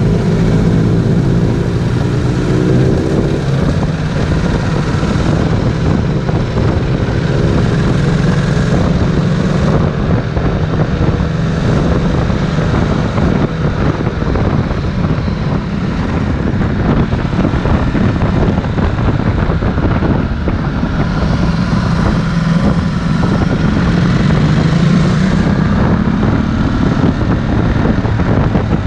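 Ducati Multistrada 1260 S's 1262 cc Testastretta V-twin engine running under way, its revs rising and falling with the throttle, with revs climbing in the first few seconds.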